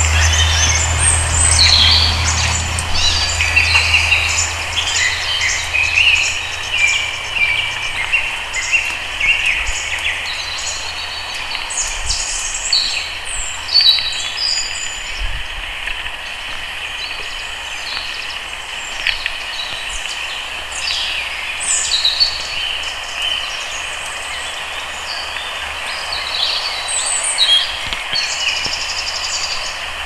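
Many forest birds chirping and trilling over a steady background hiss, with a low rumble that fades away over the first several seconds.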